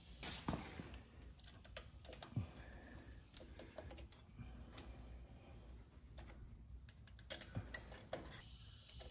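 Faint, scattered light clicks and taps of an ignition coil and its wire leads being handled and set in place on a small engine. The clicks come irregularly, a few more together near the end.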